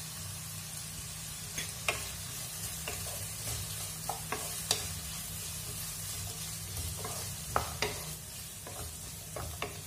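Chicken and mixed vegetables sizzling in a nonstick frying pan while being stirred with a wooden spatula, which knocks and scrapes against the pan with scattered irregular clicks.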